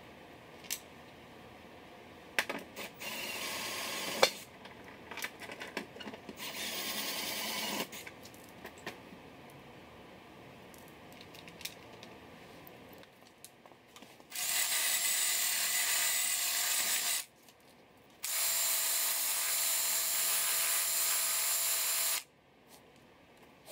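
Cordless drill spinning a wire wheel brush in two steady runs of about three and four seconds, with a steady motor whine. Two shorter, quieter whirs come earlier, with a few clicks and knocks of tools being handled.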